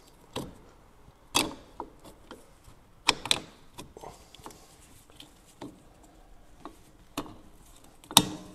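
Metal clicks and clanks as a 1965 Triumph Spitfire's new rear brake shoes, held together by their springs, are worked over the hub flange onto the drum-brake backplate. A handful of sharp knocks, the loudest about a second and a half in and another near the end.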